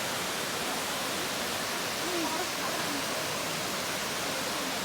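Waterfall's steady rush of falling water, with faint voices in the background.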